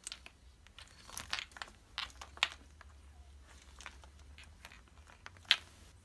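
A Bengal cat tussling with a string of lights: irregular rustles, crinkles and sharp clicks of the light string, in a cluster in the first half, with the sharpest click near the end.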